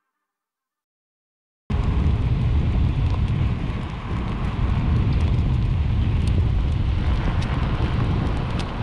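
Silence for about the first second and a half, then a sudden start of loud, steady wind rumble on the microphone from riding a Onewheel Pint, with a few faint ticks over it.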